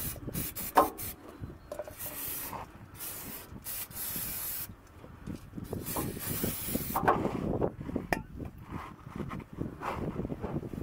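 Aerosol cleaner sprayed in several short hissing bursts onto the oily underside of the engine after an oil change, the longest burst about a second, then a rag rubbing the sprayed area clean.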